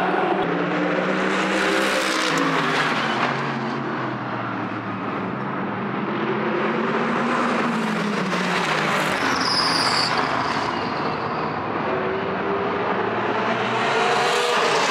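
Race cars going past at speed one after another, their engine notes swelling and falling away with each pass, with several passes in a row. A brief high whine comes about ten seconds in.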